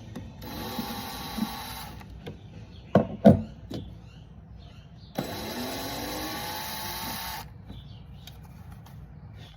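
Power drill-driver backing screws out of furniture hardware. It runs twice, for about a second and a half and then about two seconds, the second run whining up in pitch as it spins up. A few sharp knocks of hardware come between the runs.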